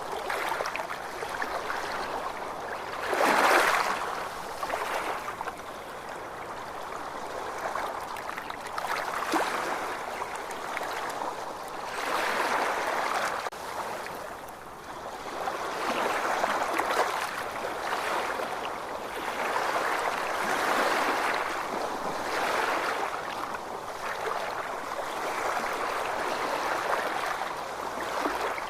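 Ocean waves washing in, a steady rush that swells and eases every few seconds; the loudest surge comes about three and a half seconds in.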